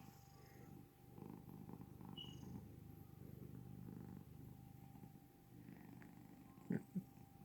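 Soft, low snoring that swells and fades with each slow breath. Near the end come two short sharp sounds in quick succession, louder than the snoring.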